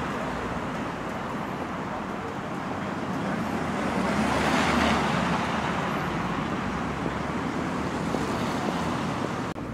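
Street traffic noise, with a motor vehicle passing: the noise builds to its loudest about halfway through and then fades.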